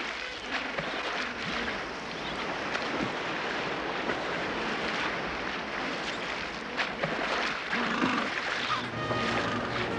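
Sea surf breaking and washing with a continuous rushing noise and occasional splashes, with steady music tones coming in near the end.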